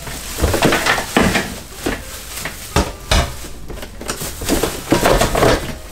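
Plastic packaging crinkling and rustling as the wrapped metal parts of an over-the-sink dish rack are handled, with a few knocks of the parts.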